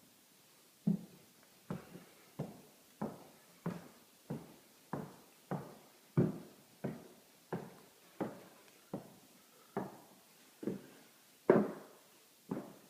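Footsteps climbing a staircase, a steady series of thuds about one and a half steps a second.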